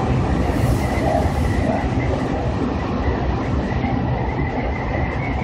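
Seibu Ikebukuro Line electric train running along the track, heard from inside the front car: a steady rumble of wheels on rails with a thin, steady high tone above it.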